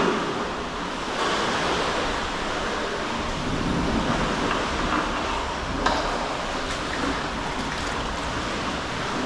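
Sea waves washing and surging, a steady rushing noise, with a single short, sharp knock about six seconds in.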